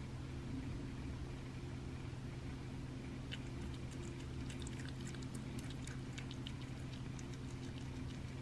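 A cat eating wet raw rabbit food: quick, small wet clicks and smacks of its mouth starting about three seconds in, over a steady low hum.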